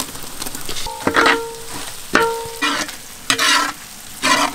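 Crushed ginger being stirred into onions frying in hot oil in a large metal pan: about five scrapes of a utensil against the pan, two of which leave it briefly ringing, over a light sizzle.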